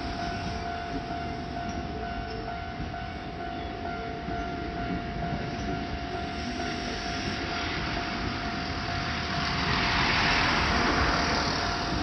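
Japanese railway level-crossing warning bell ringing continuously over the rumble of a passing train, with the train noise swelling about ten seconds in.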